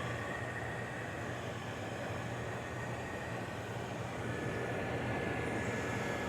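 GE over-the-range microwave oven running with the power level set to off and the turntable stopped, so only its fans are heard: a steady whir with a low hum underneath.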